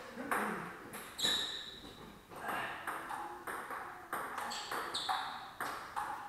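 Table tennis ball clicking off the rackets and bouncing on the table during a rally, about two sharp pings a second, each with a short ringing tail.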